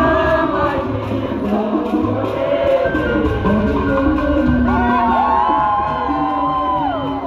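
Loud party music with a steady bass beat and singing over a crowd. A voice holds one long high note from about five seconds in.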